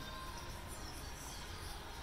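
Steady outdoor background noise with a low rumble, a few faint high chirps and a thin faint tone; no ball or glove sounds.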